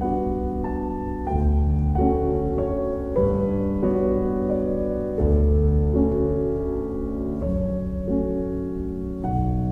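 Background piano music: a slow melody over held low notes, with a new note or chord every half second or so.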